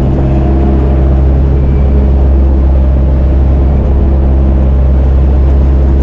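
Outrigger boat's engine running steadily underway, a loud, low, even drone.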